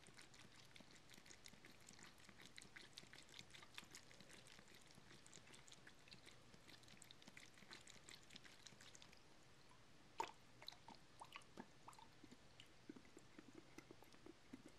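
Near silence: room tone with faint scattered ticks and a soft click about ten seconds in.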